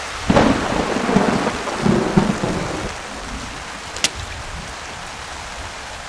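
Steady rain hiss with a low rumble of thunder swelling several times in the first few seconds, then fading. A single sharp tick about four seconds in.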